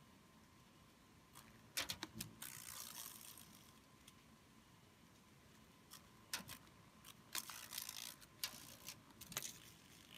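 Large beetles hitting a window screen: irregular sharp taps and clicks in small clusters, with a brief scratchy rustle about two seconds in.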